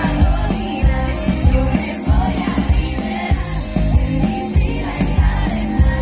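Pop music with singing and a heavy, steady beat, played loud over a concert PA and heard from among the audience.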